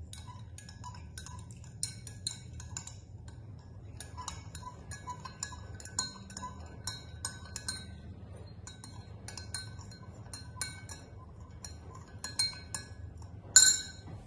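A metal spoon clinking against the sides of a measuring cup as water and white paint are stirred together, in quick irregular taps, with one louder clink near the end.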